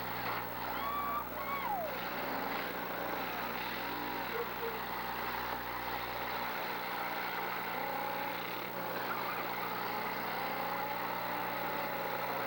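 Engines of several demolition derby cars running and revving, their pitch rising and falling, over a steady noisy din.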